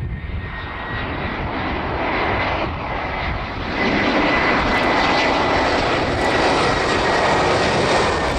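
Airbus A319 jet airliner's twin CFM56 turbofan engines on landing approach, getting louder as the plane comes in low and close, stepping up in level about four seconds in. A steady high whine sits over the engine noise.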